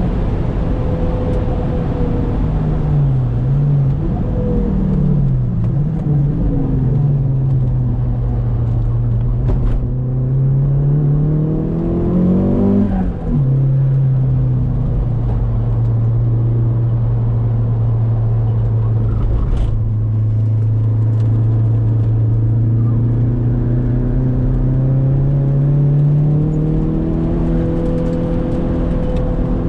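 Saab 9-3 Aero's turbocharged four-cylinder engine heard from inside the cabin while being driven on track. At first the pitch falls and wavers as the car slows. It then climbs and drops sharply at a gear change about halfway through, holds a steady note through a long stretch, and climbs again near the end.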